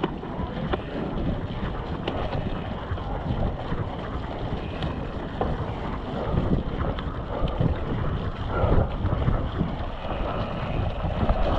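Mountain bike riding over a muddy dirt trail: tyres rolling through mud with small clicks and rattles from the bike, under a steady rush of wind on the microphone.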